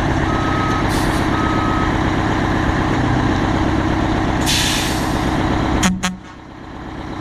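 Heavy diesel truck running steadily, its reversing beeper sounding twice early on. About four and a half seconds in there is a short hiss of air. Two sharp clicks follow near the end, and then the sound drops off suddenly.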